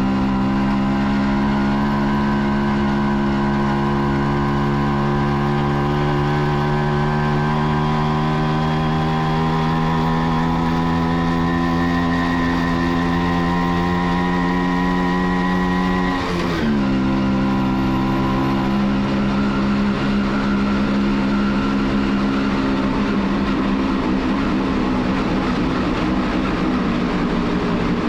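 Kawasaki B1's two-stroke single-cylinder engine heard from the rider's seat, pulling steadily in gear with its pitch slowly climbing. About two-thirds of the way through it drops sharply at an upshift, then climbs again.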